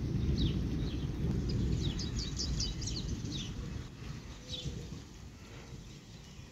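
Thunder rumbling low and dying away about four seconds in, while small birds chirp with short falling notes.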